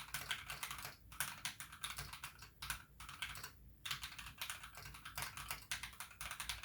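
Fast typing on a Drop Alt High Profile mechanical keyboard with Alpaca linear switches lubed with Krytox 205g0 and fitted with switch films: a dense run of keystroke clacks, with brief pauses about a second in and just past halfway.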